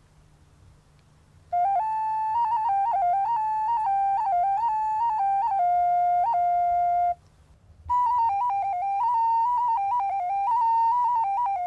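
A solo flute playing a melody in two phrases, the first starting after about a second and a half and the second following a short break about seven seconds in.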